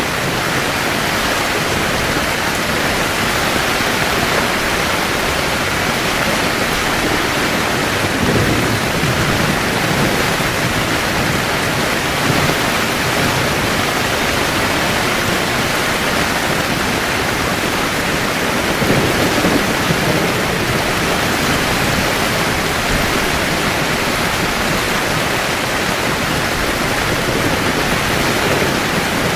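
Heavy rain pouring steadily onto a camping tent, a dense even hiss, with a brief low rumble swelling up twice.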